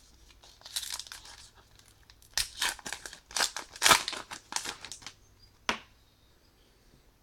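Wrapper of a 2015 Topps Allen & Ginter baseball card pack being torn open and crinkled by hand: irregular crackling rustles for about five seconds, ending with one sharp crackle.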